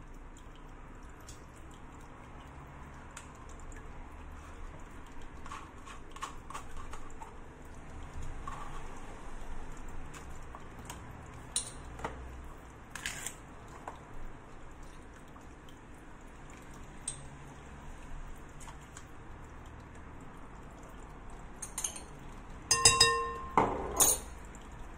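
A metal spoon clinking and scraping on glassware as yogurt is spooned into a glass mixing bowl, with scattered light knocks. Near the end there are a few sharp, ringing clinks of spoon on glass.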